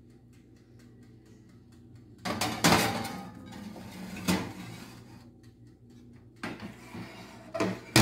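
A glass baking dish scrapes and clinks as it is slid onto the wire rack of an Itimat countertop electric oven, starting about two seconds in. A few lighter knocks follow, then the oven door shuts with a sharp knock at the very end.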